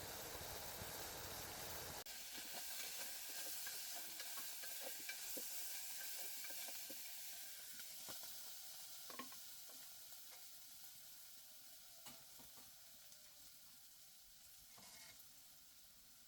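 Food sizzling in a hot pan, with a few light clicks of a utensil stirring; the sizzle is strongest in the first seconds and slowly dies down.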